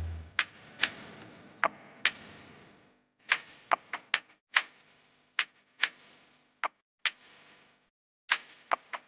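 Close-up eating noises: a string of sharp, irregular clicks and crunches, about one or two a second.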